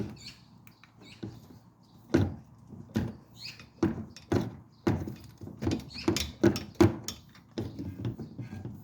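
Irregular clicks and knocks of hand tools on metal while a car's brake caliper is being unbolted.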